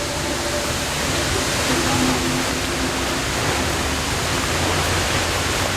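A large waterfall's steady, loud rush of falling water, an even hiss with no pauses.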